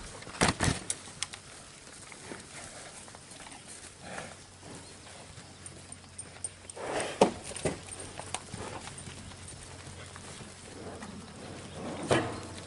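Cattle being herded: scattered knocks and thuds of hooves, with a quick run of sharp knocks in the first second and a half and louder thuds about seven and twelve seconds in.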